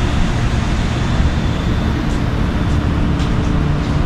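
Steady low rumbling noise with a faint hiss above it, unbroken, with a few faint ticks.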